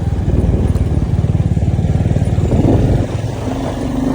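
Motorcycle engine running steadily under way, easing off about three seconds in.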